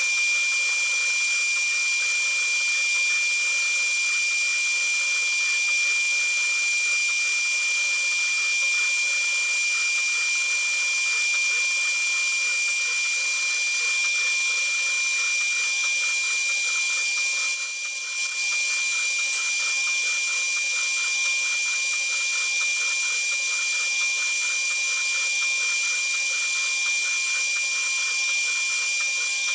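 HTM1325 CNC router spindle running at high speed with a steady high-pitched whine, its fine carving bit cutting a 3D relief into MDF. The sound dips briefly about eighteen seconds in.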